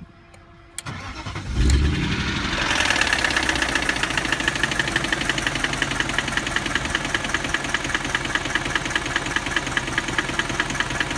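BMW M62B44 4.4-litre V8 cranking and catching about a second and a half in, then idling with a regular knock several times a second. The owner hopes the knock is a failing timing chain guide and fears rod knock.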